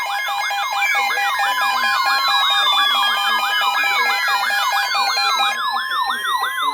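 Several electronic siren and alarm tones layered over one another: a fast rising-and-falling yelp repeating about three times a second, with slower falling wails and steady tones sounding over it.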